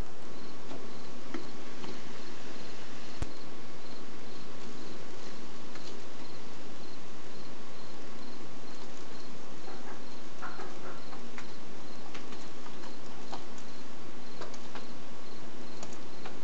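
Night insect chorus: a steady hiss of insects with a faint high chirp repeating evenly about twice a second, and scattered light ticks.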